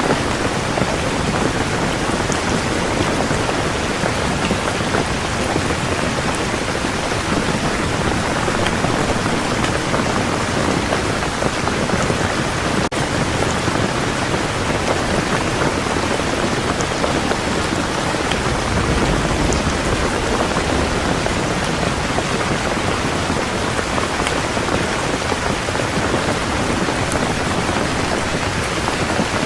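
Heavy rain falling steadily and densely. A low rumble of distant thunder swells up about two-thirds of the way through.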